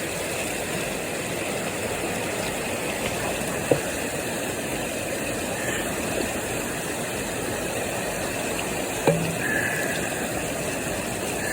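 Steady rush of river water and waterfalls, with two sharp knocks, one about four seconds in and one about nine seconds in.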